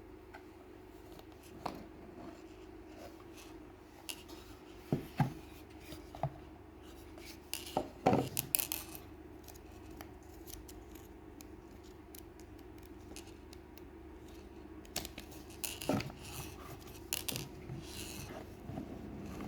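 A box and its packaging being handled and opened: scattered clicks, taps and rustles, with the loudest clusters about 5 and 8 seconds in and again near 16 seconds, over a faint steady hum.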